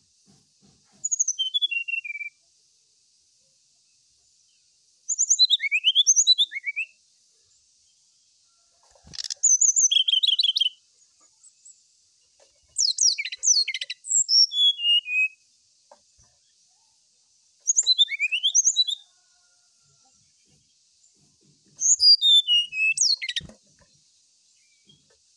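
Brown-chested jungle flycatcher singing: about six short phrases of quick, falling whistled notes, each a second or two long, with pauses of two to three seconds between them.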